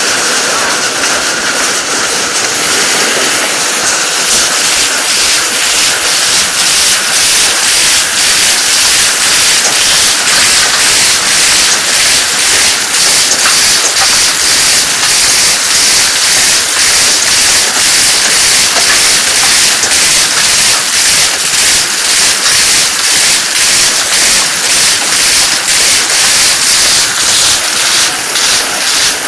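Agricultural rotary dryer running: a loud, steady hissing rush with a regular pulsing beat somewhat more than once a second.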